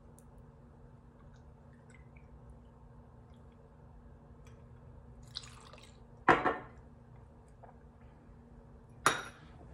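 Lemon juice poured from a bottle into a metal jigger and tipped over ice in a stainless steel cocktail shaker: a short splash with a clink about six seconds in, and another clink about nine seconds in. Between them, only a faint steady hum.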